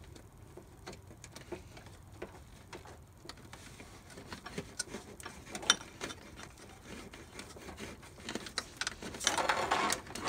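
Hands pushing wires through a rubber grommet in a car's firewall: scattered light clicks and rustling, with one sharper click about halfway and a longer scraping rustle near the end.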